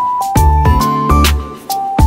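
Background music: a melody stepping between notes over a bass line and drums with a steady beat.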